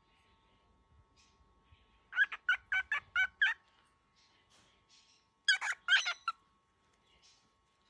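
Baby cockatiel giving rapid, harsh angry calls in two bursts: about seven in quick succession, then four or five more a couple of seconds later.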